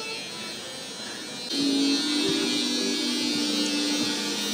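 Electric hair clippers running with a steady buzz, growing clearly louder about a second and a half in.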